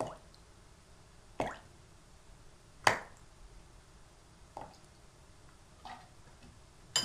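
Spoonfuls of vegetable oil tipped from a metal tablespoon into a plastic bowl of whey. There are five short, sharp sounds about a second and a half apart, one for each tablespoon added.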